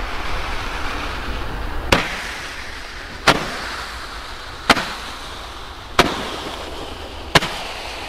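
Five-shot Roman candle firing its five shots one after another, a sharp pop about every second and a half, over a fading hiss.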